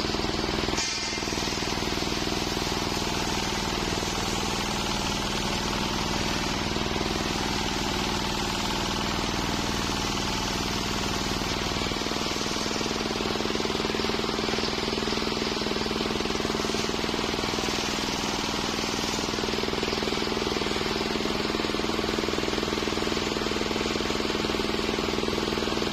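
Homemade circular sawmill running steadily, its engine and spinning blade making a continuous mechanical noise with a steady hum under it. The noise dips briefly about a second in.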